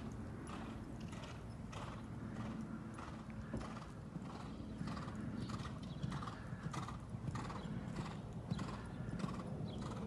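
Hoofbeats of a sport horse cantering on sand arena footing, a steady rhythm of a few beats a second.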